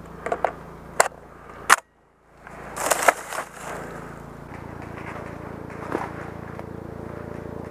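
A few sharp clicks, then a steady helicopter drone with several humming tones that grows louder about halfway through as the helicopter approaches.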